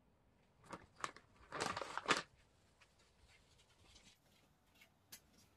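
Handling noise: two sharp clicks, then a brief crinkling rustle about two seconds in, followed by a few faint ticks.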